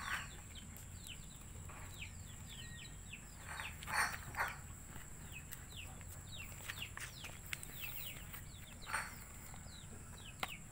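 Chickens, faint: a steady scatter of short, high, falling peeps, with a few louder short sounds about four seconds in and again near nine seconds.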